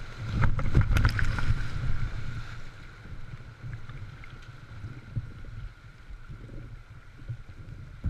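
Whitewater rapids rushing around an open canoe, with waves slapping and splashing against the hull and wind buffeting the camera microphone. It is loudest and choppiest in the first couple of seconds, then eases to a steadier rush.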